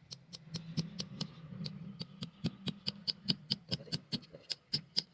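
Light, rapid hammer blows on metal, about five a second in an even rhythm, each with a short high metallic ring.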